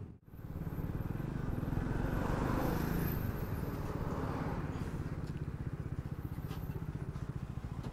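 Triumph Speed 400's single-cylinder engine running at low speed in traffic, with a steady even exhaust pulse. It is louder for a couple of seconds about two seconds in, then settles back.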